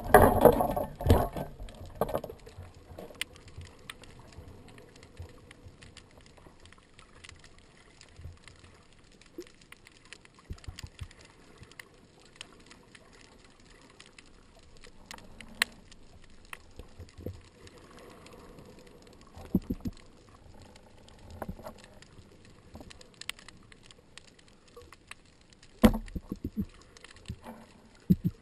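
Water churning and splashing at the surface for the first couple of seconds, then the muffled quiet of underwater audio with scattered faint clicks and a few dull knocks, the loudest knocks near the end.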